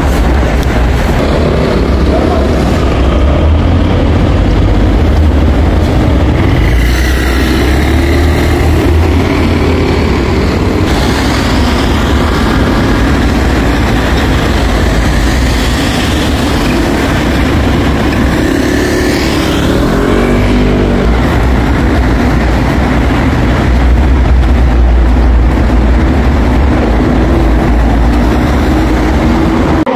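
Subway train in motion: a loud, steady low rumble with an even rushing noise over it.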